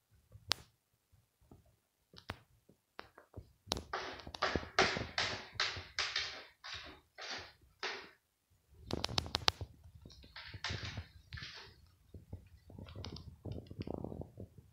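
A cat scratching litter in a plastic litter box to cover its urine: runs of quick scraping strokes, about two a second, with a few sharp clicks about halfway through.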